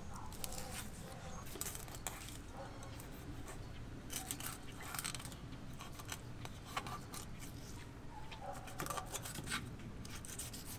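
Fillet knife scraping and clicking over a gag grouper's rib bones as the fillet is cut free, a run of small irregular clicks and scratches.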